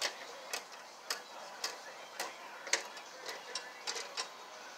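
Socket ratchet clicking, a sharp click about every half second and a few quicker ones near the end, as the bolts of a mower-deck spindle are snugged by hand.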